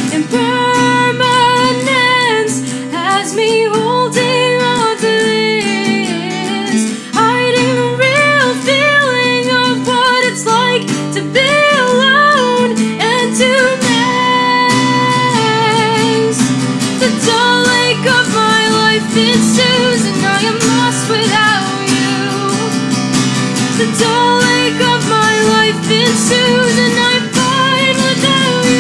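A woman singing a song with acoustic guitar accompaniment.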